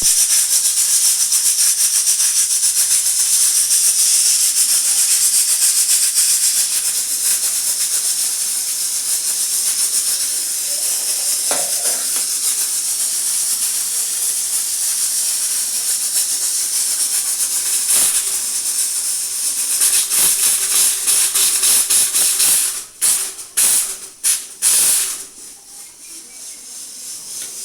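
Pressure cooker whistle releasing steam: a loud, steady, rattly hiss for about twenty seconds. Near the end it breaks into a few short sputtering spurts and then fades.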